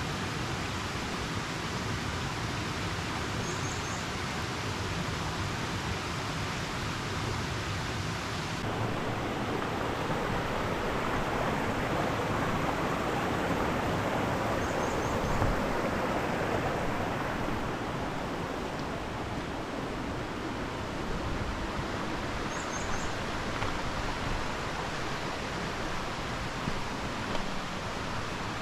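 Steady rushing of a mountain stream, an even hiss of running water, whose tone shifts abruptly twice. A short, high, quick chirp comes through faintly a few times.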